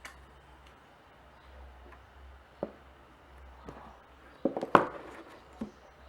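Handling noise: a few light taps and knocks, a quick cluster of them about four and a half seconds in, over a low hum.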